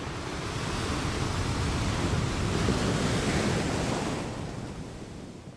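Ocean surf: a wave washing in, swelling to its loudest about halfway through, then receding and fading out near the end.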